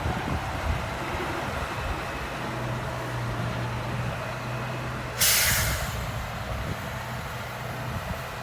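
Komatsu D53E bulldozer's diesel engine running steadily. About five seconds in, a short, loud hiss of air, the loudest sound here, fades away in under a second.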